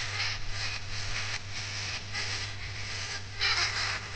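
Homemade TIP31C transistor stereo amplifier playing audio from a phone through two bare woofers. It sounds noisy and pulsing, without a clear tune, over a steady low hum.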